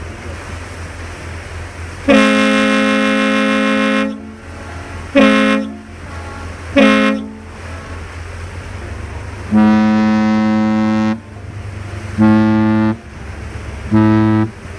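Two ship's whistles exchanging signals: a lake freighter and a tour boat. One sounds a long blast and two short blasts, and a second, deeper whistle answers with the same long-short-short pattern. A steady low engine rumble runs underneath.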